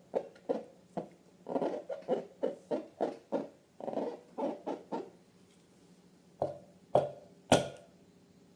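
Squishy, squeaky handling sounds from balloons and slime being worked by hand, about two or three a second, stopping about five seconds in. Then three sharper, louder snaps near the end.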